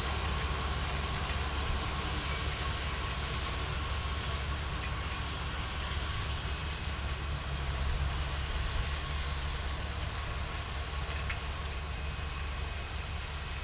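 Farm tractor engine running steadily, a constant low drone, while it pulls a hay rake with a baler hooked behind it.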